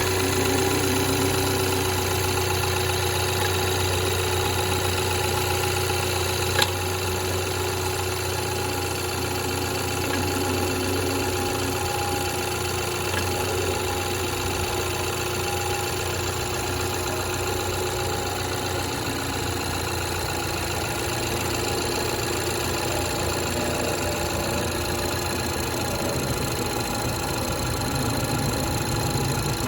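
BMW B48 2.0-litre turbocharged four-cylinder idling steadily after a cold start, with the extraneous noises the owner is recording at 115,000 km. A single sharp click comes about seven seconds in.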